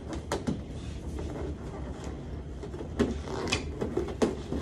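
Inflated latex balloons rubbing and knocking against one another as a cluster of four is pressed and twisted into a balloon column, with a handful of sharp squeaks and bumps.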